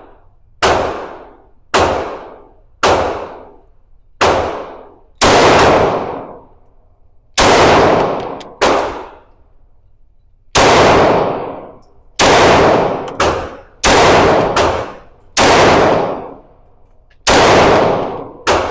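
Firearm shooting at a gun range: a string of about fifteen single shots, roughly one a second with some fired in quick pairs, each followed by a long echoing decay.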